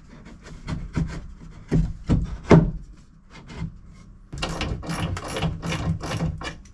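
Wood knocking and rubbing as a wooden cleat is handled and fitted into the boat's bilge framing: several sharp knocks in the first three seconds, then a run of quick scraping strokes past the middle.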